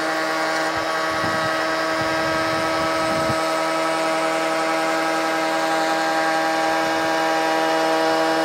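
Trend T14 router in a router table, spinning a half-inch rebate cutter at full speed together with a Trend T35 dust extractor drawing through its hose. The two motors run with a steady pitched whine that grows slightly louder near the end.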